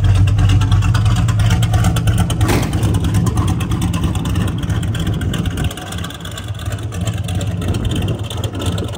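Fresh small-block Chevrolet 350 V8 engine running steadily with a low, even note. About two and a half seconds in there is a sharp knock, after which the engine carries on somewhat quieter.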